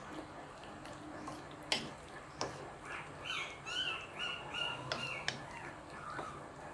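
Wooden spoon stirring a simmering pork and vegetable stew in a wok, with a few sharp knocks of the spoon against the pan. Midway an animal gives a quick run of five or six short, high calls.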